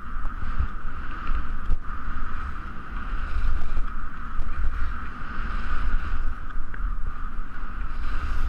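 Wind rushing and buffeting over a helmet-mounted action camera's microphone as a skier descends, with the skis running over snow underneath.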